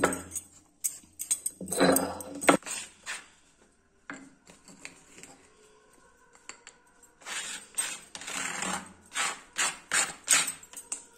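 Roasted whole spices being ground with a grinding stone on a flat stone slab (shil-nora): short rasping strokes of stone on stone. A few strokes come near the start, then a quiet spell of light scraping, then a quicker run of about eight strokes in the second half.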